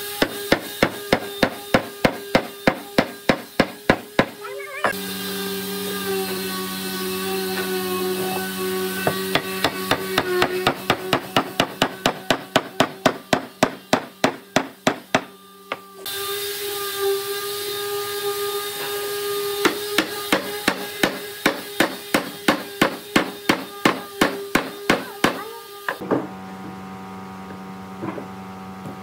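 Fast, regular hammer blows, about three a second, knocking wooden tenons home into the mortises of a timber table-base frame. The blows come in several runs broken by short pauses, over a steady hum.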